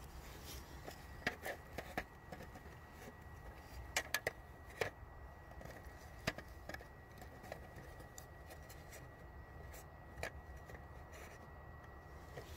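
Faint handling noise: a few scattered sharp clicks and small rustles, with a cluster of three about four seconds in, over a low hum and a faint steady high-pitched tone.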